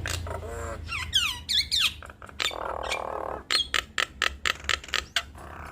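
Nias hill mynas calling: quick sharp clicks and squawks, a run of whistled downward glides about a second in, and a harsh buzzy call near the middle.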